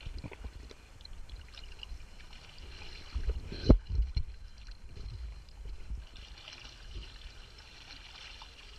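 Small waves lapping and sloshing against a camera held at the waterline. There is a single sharp knock about three and a half seconds in.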